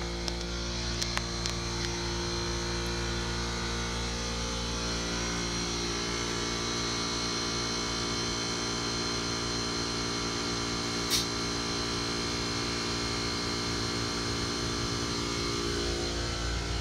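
A motor running steadily, an even low hum with several tones stacked above it. There are a few faint ticks about a second in and one short, sharp sound about eleven seconds in.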